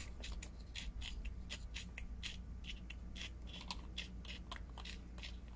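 Faint, irregular clicks and taps of small plastic toy figures being handled and set onto a plastic toy seesaw.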